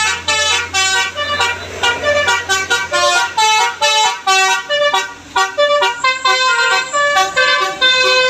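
A bus's telolet musical air horn playing a quick tune of short notes that change pitch several times a second. A low hum runs under it and stops about four seconds in.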